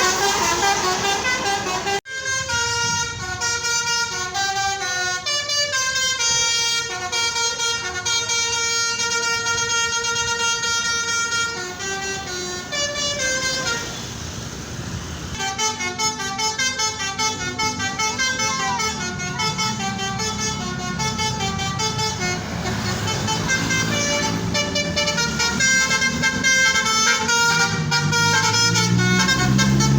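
Bus 'telolet' horn, a Basuri multi-tone air horn, playing tune-like runs of held notes again and again over a running bus engine. About halfway the notes pause briefly under a hiss, and near the end the engine rises in pitch as it speeds up.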